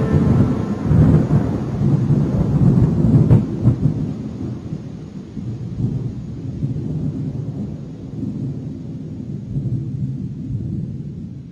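Thunder rumbling, loudest at first and then slowly dying away into a low, uneven rumble.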